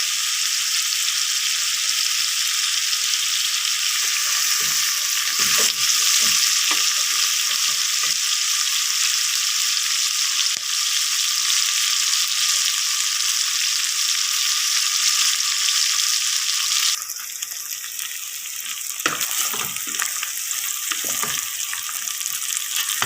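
Chicken feet sizzling in hot oil in a pan, a steady loud frying hiss that eases off about two-thirds of the way through, with bursts of stirring knocks from a utensil against the pan.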